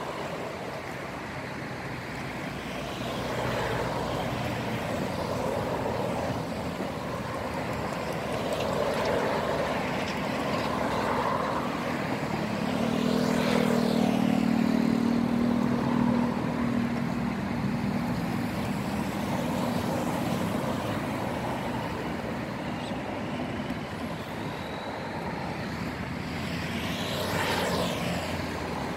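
Motor traffic going by: a steady engine rumble that swells to a hum in the middle, with vehicles passing about halfway through and again near the end.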